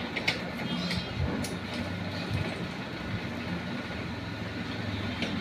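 Steady low rumble of road traffic, with a few light metallic clicks in the first second or so as the engine-mount nuts are tightened.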